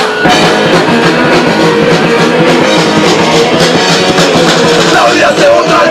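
Live punk rock band playing loud, with electric guitar and drum kit, kicking in abruptly right at the start. A voice comes in over the band near the end.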